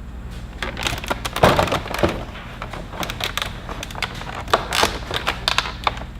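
Plastic blister packaging of a hook-and-pick tool set crackling and clicking as it is handled and opened, in a quick irregular run of sharp cracks.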